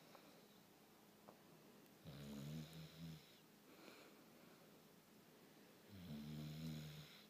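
Bulldog snoring: two snores, each about a second long and about four seconds apart, with a fainter breath between them.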